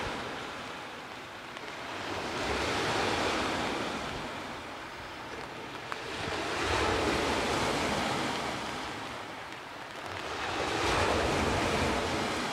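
Black Sea waves breaking on a pebble beach and washing back over the stones, the surf swelling and fading about every four seconds.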